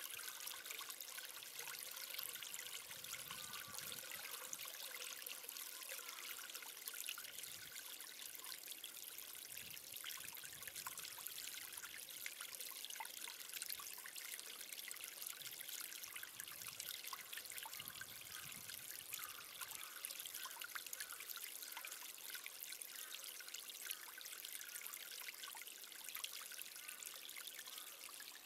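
A steady, fine crackling hiss like trickling water.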